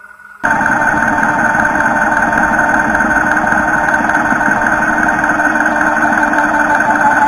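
Engine sound of an RC construction truck running steadily at idle, cutting in abruptly about half a second in.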